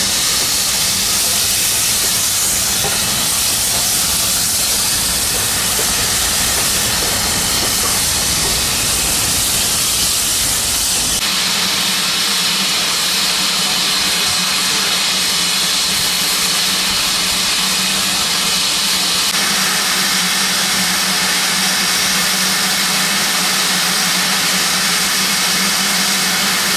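BR Standard Class 5MT 4-6-0 steam locomotive venting steam: a loud, steady hiss with no exhaust beats. The hiss changes character about eleven seconds in.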